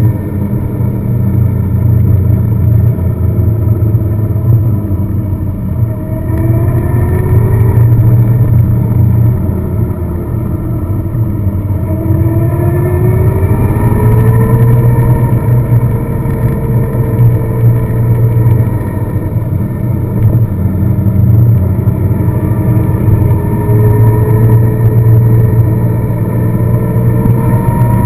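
A car being driven, with a steady low drone of engine and road noise and an engine note that rises and falls several times as the speed changes.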